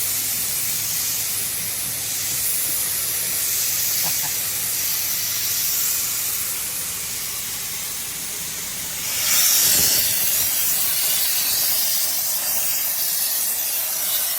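TIG welding arc hissing steadily during a root pass, with a faint steady low hum underneath. The hiss grows louder for a few seconds about nine seconds in.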